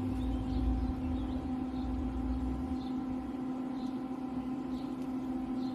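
GYS Powerduction 37LG water-cooled induction heater running while its loop inductor heats a truck wheel nut: a steady hum with several overtones, with a low rumble under it through the first half.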